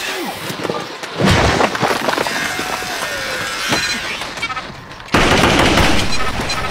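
Gunfire from handguns and rifles: a loud onset of shots about a second in and a sustained burst of rapid fire starting about five seconds in.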